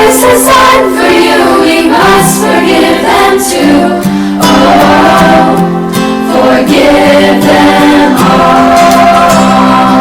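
Music: a song sung by a group of voices over instrumental backing.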